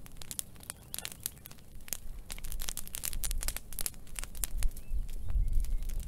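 Wood fire burning in twigs and kindling, crackling with many sharp snaps and pops over a low rumble of flame. The crackles grow denser and louder after about a second.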